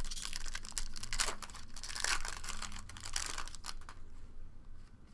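Trading card pack wrapper being torn open and crinkled, a dense crackling that dies down in the last second or so.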